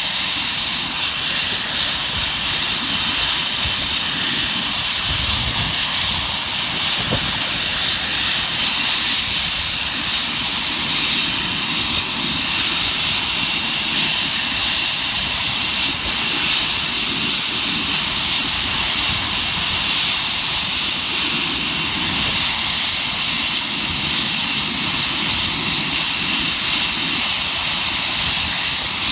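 Panavia Tornado GR4's twin RB199 turbofan engines running, a loud high whine held at one steady pitch over a ragged low rumble.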